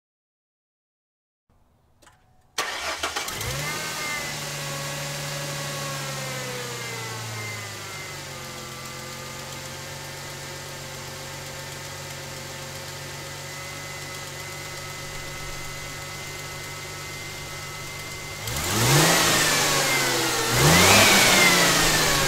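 2002 Ford Mustang's 3.8L V6, stock but with a leaking passenger-side exhaust manifold, starting up a couple of seconds in and settling from a fast idle down to a steady idle. Near the end the throttle is blipped twice, the second rev higher.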